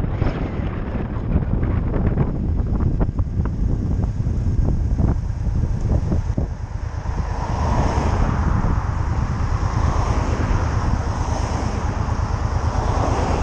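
Wind buffeting the microphone of a motorcycle helmet camera while riding, with the motorcycle's engine and road noise running steadily underneath.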